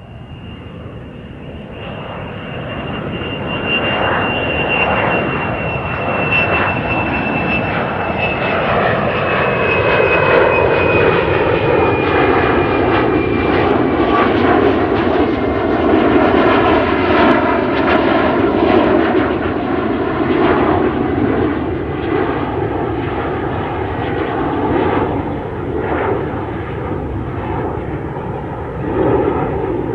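Airplane engine noise swelling over the first few seconds, then a loud, steady roar as the plane flies past. A high whine slowly falls in pitch through the first half.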